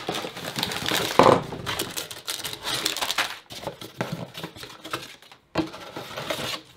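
A LEGO set's cardboard box and its contents being handled and unpacked: an irregular run of clicks, rustles and crinkles, loudest about a second in.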